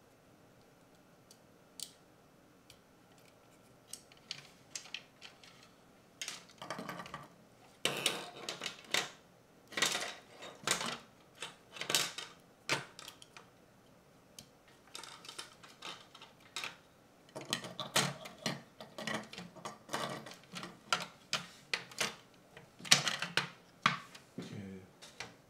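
Small plastic parts and a wired circuit board of a PO-80 Record Factory turntable kit being handled and fitted together: irregular clicks, taps and rustles that come in busy spells.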